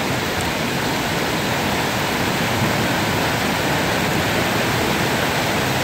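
Hail falling heavily onto an asphalt parking lot: a dense, steady hiss of countless small impacts.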